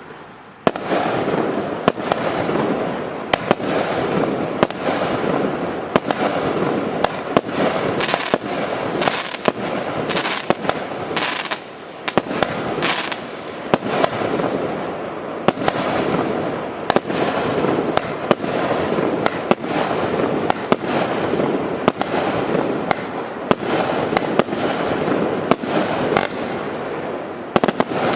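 25-shot consumer firework cake (TKB532 'Mult 16') firing its shots in sequence. Sharp shots about one a second ring out over a continuous dense hiss, starting about a second in and going on to the end.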